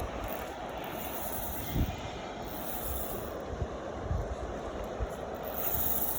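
Steady rushing noise of river water with wind buffeting the microphone, and a few low thumps.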